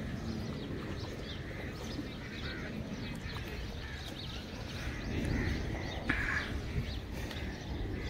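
Many small birds chirping and calling in the trees, over a low steady rumbling noise, with one brief louder call about six seconds in.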